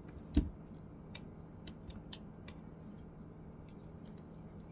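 Small repair tools clicking and tapping against the Samsung Galaxy S10+'s internal parts during disassembly: one sharp click shortly after the start, then a handful of lighter ticks over the next two seconds.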